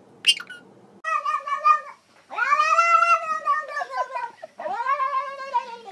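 A calico cat gives three long, drawn-out meows, each rising then falling in pitch, the middle one the longest and loudest. Just before them comes one short high squawk from a blue Indian ringneck parakeet.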